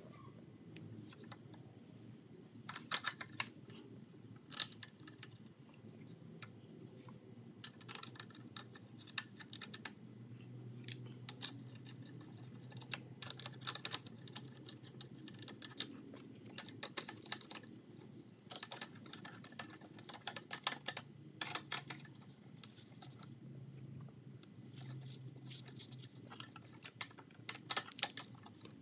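Nut driver turning in the carburetor mounting bolts on a Briggs & Stratton mower engine: scattered, irregular light clicks and ticks of tool and bolt on metal.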